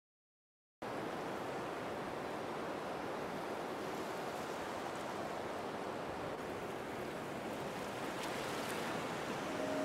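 After a moment of silence, a steady wash of ocean surf starts abruptly about a second in and runs on evenly. Near the end, held musical tones begin to come in over it.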